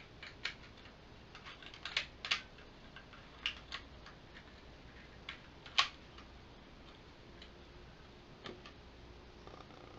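Irregular sharp clicks and snaps of hard plastic parts as a Power Rangers Lost Galaxy Wolf Galactabeast toy is handled and its pieces moved. The clicks are thickest in the first six seconds, with the loudest snap just before the middle, and there is a softer knock later as the toy is set on the table.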